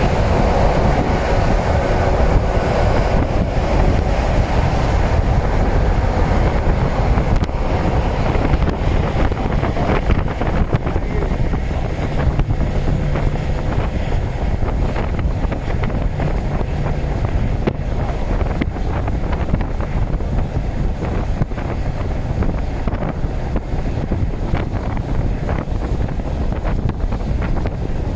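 Freight train rolling past: a steady low rumble with a dense run of clicks and clacks, and wind buffeting the microphone.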